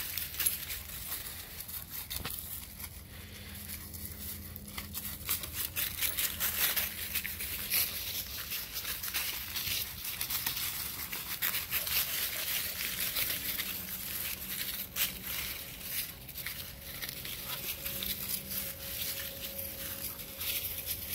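Dry fallen leaves crackling and rustling underfoot as a sheep and dogs move about and scuffle on them, an irregular run of crunches.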